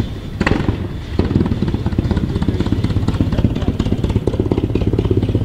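Engine of a large vintage racing car running at low revs, its firing strokes coming as a rapid, even pulsing beat. A single sharp crack sounds about half a second in.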